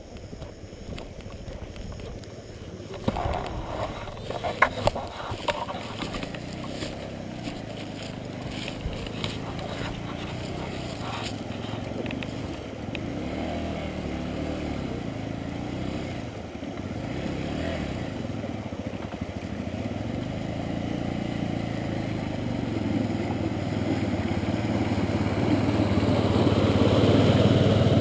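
Motorcycle engine running, its pitch rising and falling, growing steadily louder toward the end. A few sharp knocks and rattles come about four to five seconds in.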